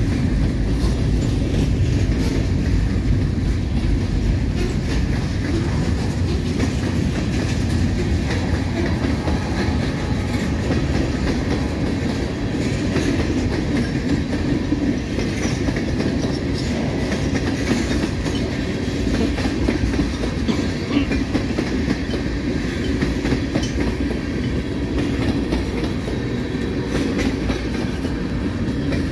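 Freight cars rolling past at speed: a steady rumble of steel wheels on the rails with clickety-clack as covered hoppers, a boxcar and tank cars go by.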